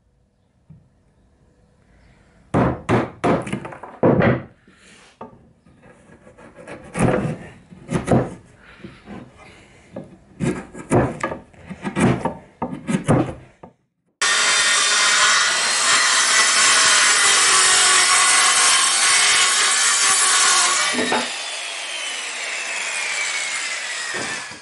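A wood chisel is driven into softwood with a wooden mallet: a series of sharp knocks and scraping as it pares out a halving joint. About fourteen seconds in, a power saw starts cutting with a loud, steady noise. It eases a little about three seconds before it stops near the end.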